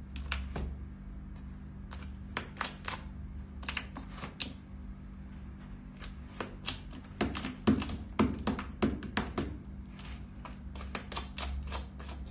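Cat scratching and pawing in a plastic litter tray to bury its droppings: irregular scratchy clicks of litter, busiest and loudest from about seven to nine and a half seconds in.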